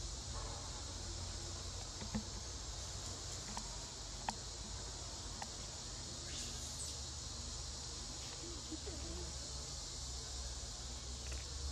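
Steady high-pitched drone of forest insects, with two short sharp clicks about two and four seconds in.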